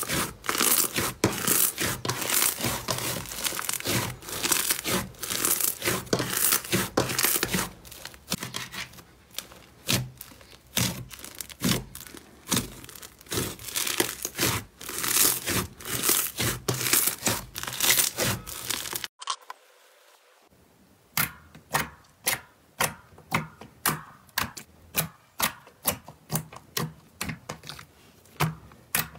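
White cloud slime being squeezed, kneaded and pulled apart by hand, giving a dense crinkling, tearing crackle. After a sudden cut, silver metallic slime is poked and gives a steady run of separate sharp pops, roughly two a second.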